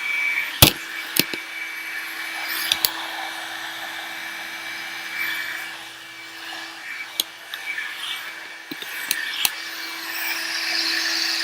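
One-step hot-air brush (hair dryer and styler) running steadily on its low setting, its fan humming and blowing, while it is worked through thick coily hair. A few sharp clicks are scattered through.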